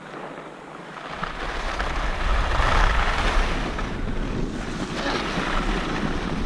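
Wind buffeting the microphone: a rushing noise with a heavy rumble that swells in about a second in and stays loud.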